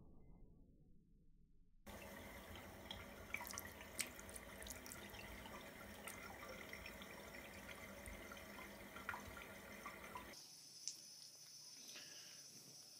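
A thin stream of tap water running into a sink, with a few small clicks and splashes as a cat plays in and drinks from the stream. It starts about two seconds in.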